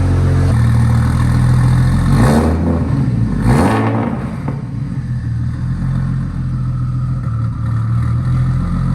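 An engine running steadily, with two brief rising-and-falling sweeps in pitch, about two and three and a half seconds in.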